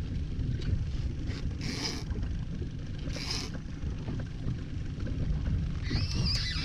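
Steady low rumble of the boat idling at sea, with two short hissing bursts about two and three seconds in. A voice starts near the end.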